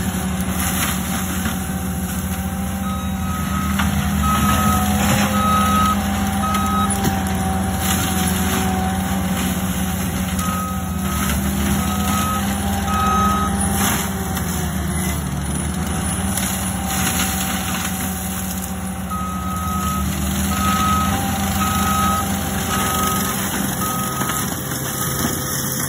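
ASV RT-135 compact track loader running steadily under load with its Fecon forestry mulcher head working brush. Its backup alarm beeps in three runs of several evenly spaced beeps as the machine reverses, about three seconds in, again around ten seconds, and from about nineteen seconds.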